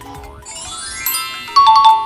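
A bright twinkling run of bell-like notes rising in pitch, then a loud two-note chime about one and a half seconds in: a cartoon-style transition jingle.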